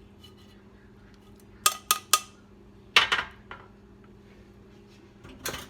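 Metal kitchenware clinking while hot herb-infused cooking oil is strained through a sieve: three quick clinks, then a louder ringing clink and a smaller one, and a short scrape near the end.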